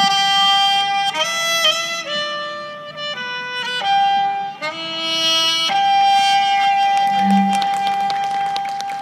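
Saxophone playing a slow melody: a held high note, a few stepped falling and rising notes, then one long held high note from about six seconds in.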